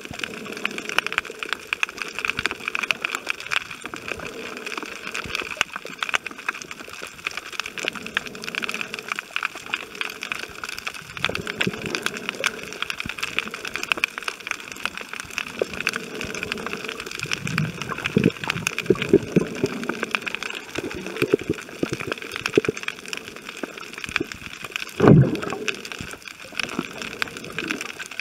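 Underwater sound on a rocky reef: a dense, steady crackle of fine clicks, with muffled sloshing and gurgling of water now and then and one louder low thump near the end.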